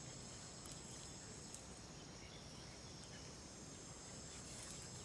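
Faint, steady high-pitched drone of insects, holding two unbroken high tones, over a low background rumble.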